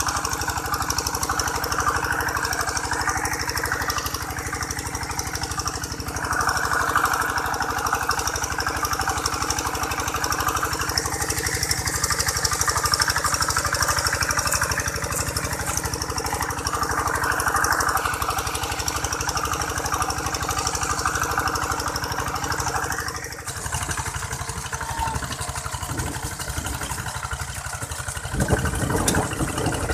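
Single-cylinder diesel engine of a two-wheel hand tractor running steadily under load as its cage wheels plough a flooded rice paddy. The sound changes abruptly about three-quarters of the way through, where another tractor's engine takes over.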